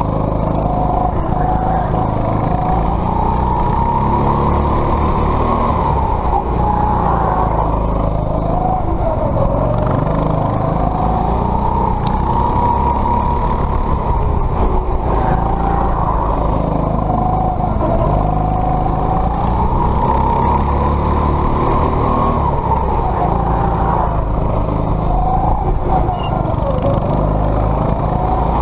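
Go-kart motor heard from on board the kart, running continuously with its pitch rising and dipping every few seconds as the throttle is opened and lifted through the corners.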